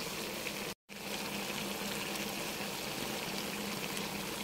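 Pot of pork stew (lechon paksiw) simmering, a steady bubbling hiss. The sound cuts out completely for a moment just under a second in.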